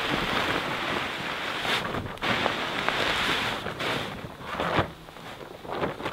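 A white plastic tarp loaded with sand rustling and scraping as it is dragged over the forest floor, then lifted and tipped so the sand slides off. The crackling noise eases off after about five seconds.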